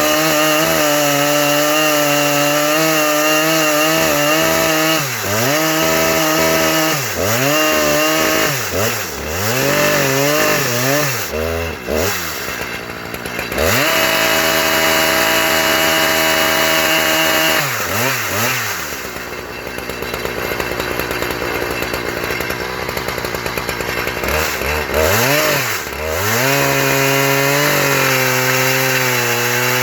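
Husqvarna 3120 two-stroke chainsaw, a 42-inch bar mounted on an Alaskan mill, running hard while cutting wood. The revs dip and climb back repeatedly, hold steady and high for a few seconds, then give way to a rougher, noisier cutting sound before surging again near the end.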